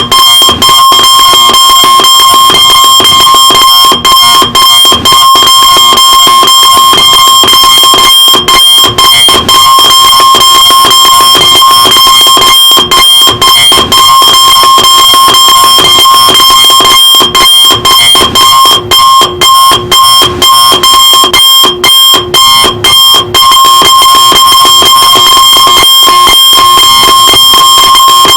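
Electronic alarm clock sounding its alarm: a loud, steady, high-pitched tone held without let-up, broken only by many split-second gaps, most of them bunched together a little past the middle.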